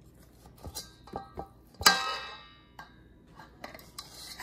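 A metal spoon scraping and tapping against a stainless steel mixing bowl while cookie dough is scooped. One sharp clang a little under two seconds in sets the bowl ringing briefly, after a few lighter clicks.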